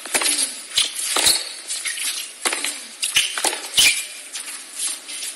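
Tennis ball struck back and forth by rackets in a rally on a hard court, with the ball's bounces in between: a series of sharp pops every half second to a second.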